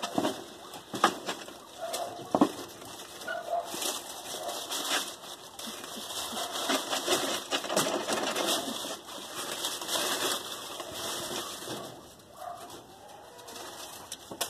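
Dry corn husks rustling and crackling in irregular bursts as a pregnant doe rabbit grabs and tugs them with her mouth to line her nest, nest building that signals she is within a few days of giving birth.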